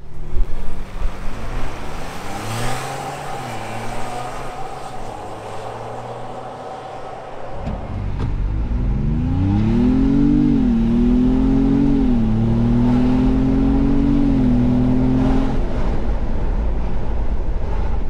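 2021 Ford Bronco Wildtrak's twin-turbo 2.7 EcoBoost V6, heard inside the cabin, accelerating hard on a 0-60 run with a JB4 tune (map 1). About halfway through, the launch brings a loud low rumble as the engine note climbs, drops at two quick upshifts, climbs again and then levels off.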